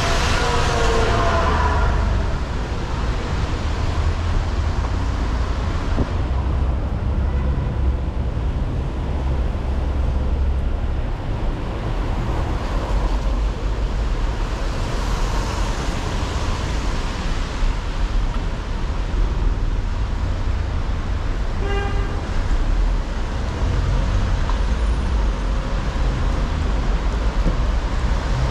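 City street traffic: vehicles passing with a rush of tyre noise, one falling in pitch as it goes by at the start, over a steady low rumble. A short car horn toot about 22 seconds in.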